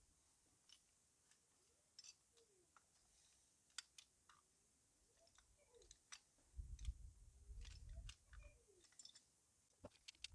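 Near silence, with faint scattered clicks and light taps from seatbelt plastic trim being worked into place by hand, and a faint low rumble about two-thirds of the way through.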